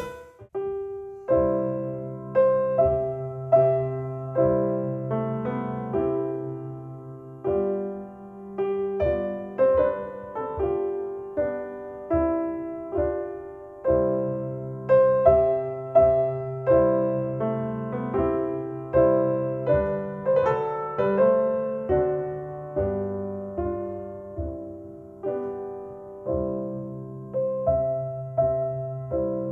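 Slow solo piano music played back over Paradigm Persona 7F loudspeakers driven by an Accuphase E-280 integrated amplifier: single notes and soft chords, each struck and left to fade, about one a second.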